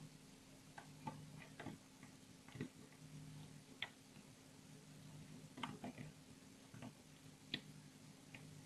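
Faint, irregular light clicks and ticks of a metal crochet hook knocking against the plastic pegs of a rubber-band bracelet loom as bands are lifted and looped over. A low steady hum runs underneath.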